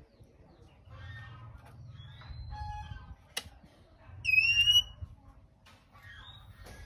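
Male oriental magpie-robin giving harsh rasping calls interspersed with short whistled notes; the loudest is a clear whistle about halfway through. A single sharp click comes just before it.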